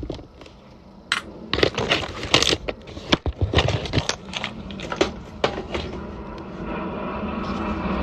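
Irregular sharp clicks and knocks, then the noise of an approaching fighter jet swelling over the last second or two.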